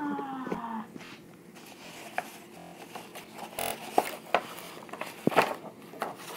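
A hummed note trails down and stops within the first second. Then paper sheets rustle and are shuffled as pages are turned, with scattered short clicks and taps from handling.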